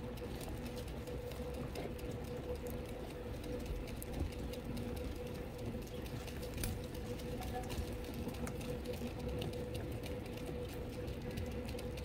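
Many domestic pigeons pecking at grain together: a dense, irregular patter of beak clicks on seed, over a steady hum.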